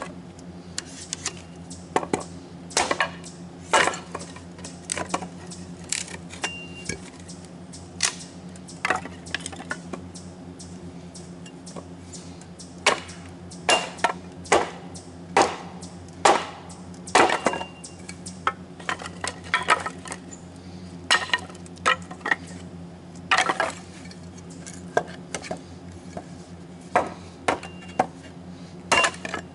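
Kindling being chopped with a hatchet: irregular sharp wooden knocks and clinks, about one every second or so, over a steady low hum.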